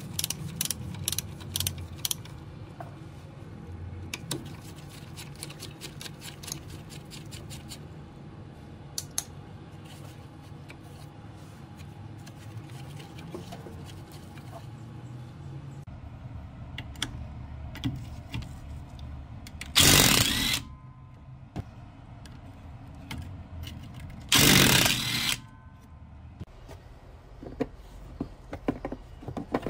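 Hand socket ratchet clicking rapidly as the brake hose bracket bolt on the rear strut is undone, followed by scattered metal clicks and taps of the loosened bolt and bracket. Two loud, short bursts of noise, each under a second, come about twenty and twenty-four seconds in.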